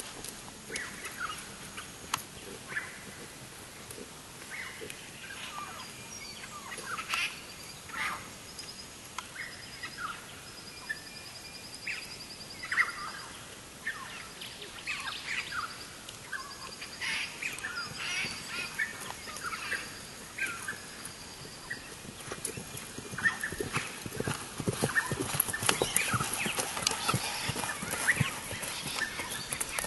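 Several wild birds chirping and calling, with a fast high trill now and then. About two-thirds of the way through, a run of dull thuds and scuffs sets in, the horse's hooves on the turf and sand.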